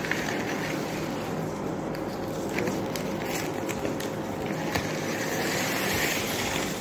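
Steady background hum and hiss, with a few light clicks and rustles as food and plates are handled on the table.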